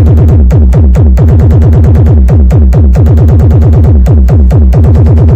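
Bass-heavy electronic remix played at full volume through a mobile sound system, driven hard for a bottle-knockdown test. It is a fast run of falling-pitch bass hits, several a second.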